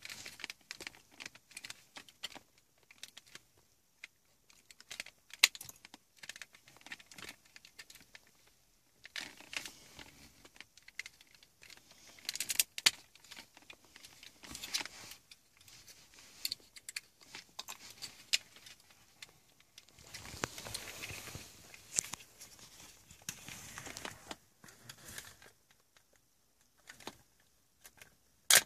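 Plastic housing of an Audi MMI control unit being pried apart by hand: irregular clicks and snaps of plastic clips, with scraping and rustling of handling in between. Sharp snaps about five seconds in, near the middle and at the very end.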